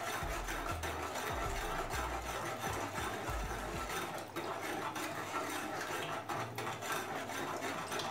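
Water swishing in a plastic bowl as a hand stirs it to dissolve baking soda, fingers rubbing against the bowl's bottom in quick repeated strokes. A low rumble underneath stops about halfway through.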